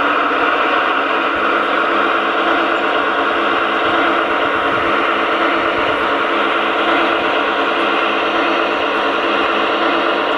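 Recorded diesel engine sound of a V 200 locomotive from an ESU LokSound XL 4.0 sound decoder, played through the small loudspeaker of an LGB garden-scale model. The engine runs steadily at a constant pitch, with no revving.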